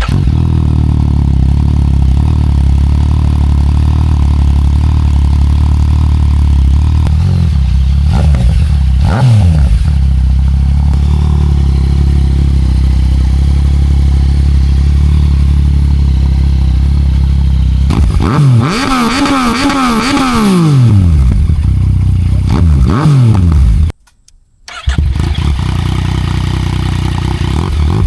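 2017 Yamaha XSR900's inline three-cylinder engine running through a Delkevic full exhaust system with no catalytic converter and the decibel killer removed. It idles steadily and is revved in quick blips about eight and nine seconds in, then in a longer run of revs from about eighteen to twenty-one seconds, with one more blip a little later. The sound cuts out briefly about twenty-four seconds in, then the idle returns.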